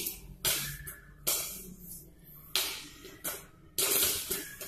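Popcorn kernels popping in hot margarine inside a covered wok on a gas stove. There are about five or six sharp, irregular pops roughly a second apart, each trailing off in a short hiss.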